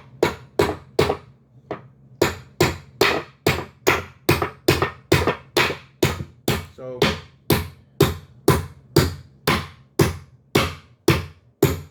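A steady series of sharp knocks, about two a second, evenly spaced, each dying away quickly.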